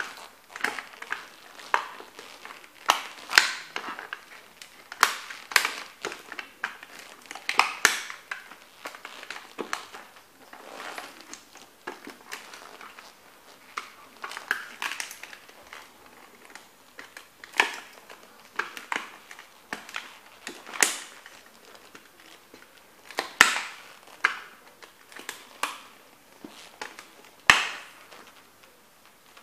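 Heavy lug-soled leather boots stomping on and grinding down a vintage toy Corvette on a board, giving irregular sharp cracks and crunches as the car body bends and breaks, with grit scraping under the soles between the louder stomps.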